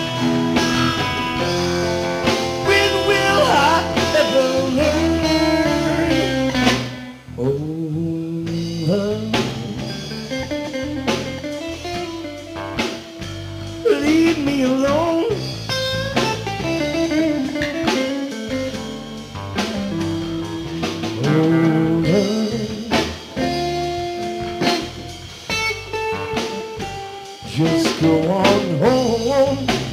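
Live blues-rock band playing a passage without sung words: electric guitars and bass over a drum kit, with a lead line that bends up and down in pitch. The sound briefly drops away about seven seconds in.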